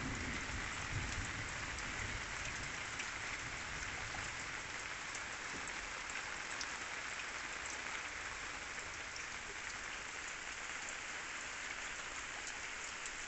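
Steady rain falling, a continuous hiss with scattered drops ticking.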